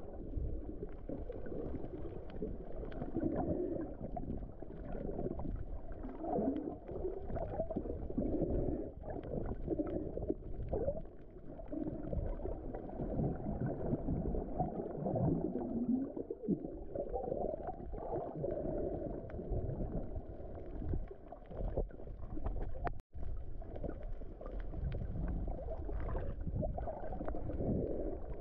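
Muffled underwater sound picked up by a submerged camera: a low, steady water rumble with faint wavering tones in it. It cuts out for an instant about three-quarters of the way through.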